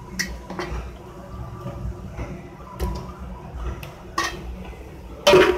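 Utensils clinking and knocking against a metal cooking pot as raw chicken pieces are handled in a wet masala paste: a handful of separate knocks, the loudest near the end, over a low steady hum.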